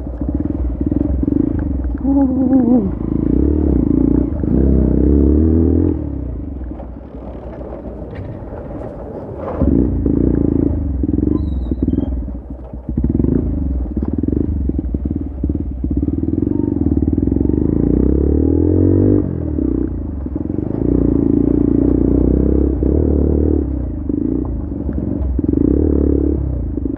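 Bajaj Pulsar's single-cylinder engine running through a loud aftermarket exhaust while riding over a rough dirt track. The engine speed rises and falls with the throttle, easing off for a few seconds about a quarter of the way in.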